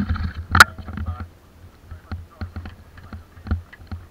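Handling noise from a kayak being carried barefoot across wooden jetty boards: a sharp knock about half a second in, then light, irregular taps and knocks.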